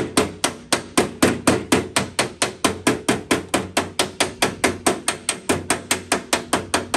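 Light, rapid taps of a body hammer on the sheet-steel body panel of a 1950 Mercury, in a steady rhythm of about five a second, each tap ringing briefly. The taps are knocking down a small high spot in metal-finishing.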